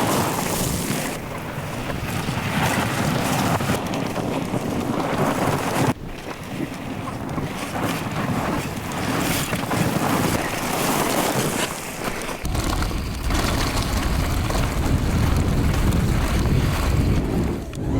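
Mountain bike ridden at speed, with wind rushing over the microphone. The sound changes abruptly about six and twelve seconds in, the last part carrying a deeper rumble.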